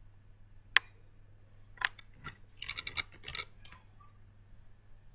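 Handling sounds: one sharp click about a second in, then a second or so of quick clicks and scratchy rasps.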